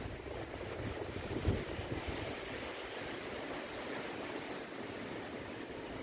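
Wind blowing through tall trees: a steady rush of leaves, with low gusts buffeting the microphone, strongest about a second and a half in.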